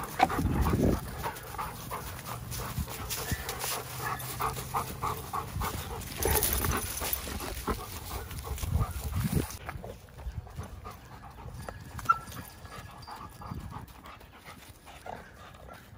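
Giant Schnauzers play-fighting at close range, panting and scuffling against each other.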